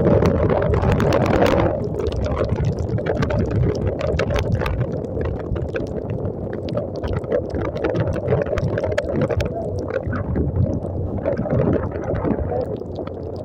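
ATV riding along a rain-soaked road: steady mixed noise of the running machine, tyres through water and wind on the microphone, with many small ticks throughout. A louder rush in the first second and a half.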